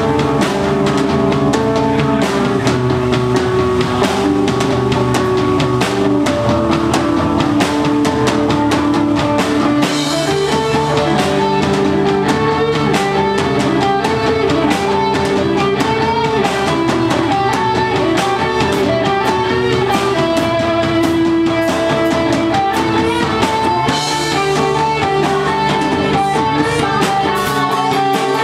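Live rock band playing: electric guitar, electric bass guitar and drum kit. The cymbals get brighter about ten seconds in and again near the end.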